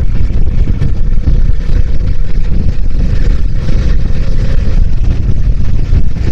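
Bajaj Dominar motorcycle on the move: steady wind buffeting on the microphone over the engine and road noise, with a heavy low rumble.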